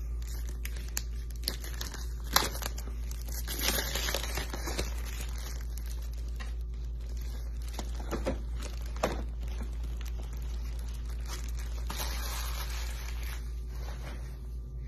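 An Optic football-card hanger pack being torn open, with tearing and crinkling of the wrapper about four seconds in and again about twelve seconds in, and a few sharp ticks between, over a steady low hum.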